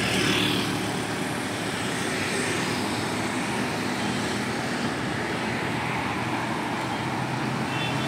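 Road traffic: motorbike and vehicle engines passing in a steady drone, with a low engine hum.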